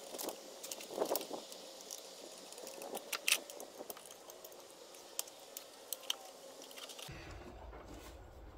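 Light metallic clicks and rattles of a copper brake pipe being bent and fitted into place by hand, with one sharper click about three seconds in.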